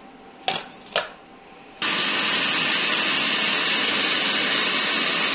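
Two sharp clicks, then just under two seconds in an electric grinder switches on and runs steadily at full speed, grinding a wet chutney of green chilli, coriander, garlic, mint, tamarind paste and cumin.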